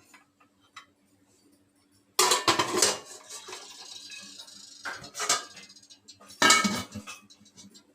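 Steel idli steamer stand and pot clattering, three bursts of metal clanks as the loaded stand is set into the pot of heated water, with a faint hiss between the first two.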